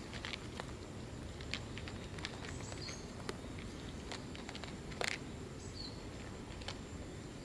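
Steady outdoor background noise with scattered sharp little clicks and ticks, the loudest about five seconds in, and a few short high chirps near three and six seconds.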